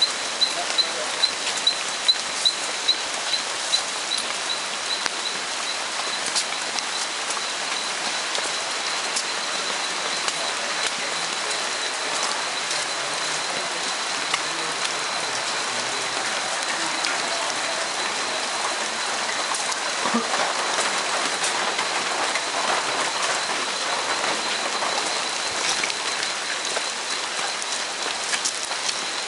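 Steady hiss of rain in a forest, with the scuff of footsteps on a wet trail. A high, thin tone pulses about three times a second for the first few seconds, then holds steady.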